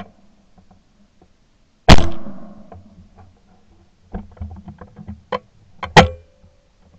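Shotgun fired once about two seconds in, very close, its report dying away over about a second. Then a run of small clicks and knocks, and a sharp loud crack near the end with a brief ringing after it.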